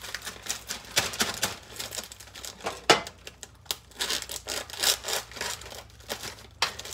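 Plastic seasoning bag crinkling and rustling as it is handled, a run of irregular crackles.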